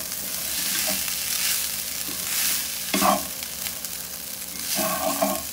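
Garlic fried rice sizzling in oil in a stainless steel pan while a wooden spatula stirs and scrapes it around, over a steady frying hiss. A brief pitched sound stands out about three seconds in.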